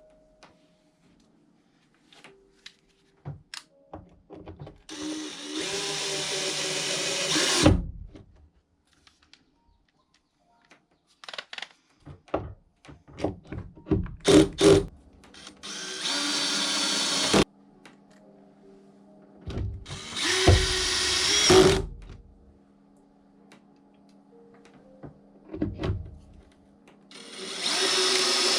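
Hand-held power tool running in four separate bursts of one to three seconds each. Between the bursts there are scattered clicks and knocks of handling.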